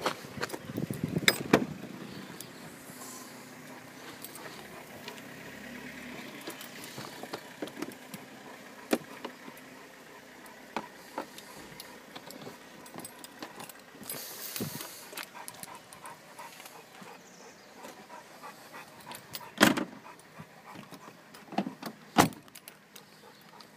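Scattered clicks, taps and knocks from hands handling a VW Golf's tailgate and boot trim. A cluster of clicks comes in the first two seconds, and two louder knocks come near the end.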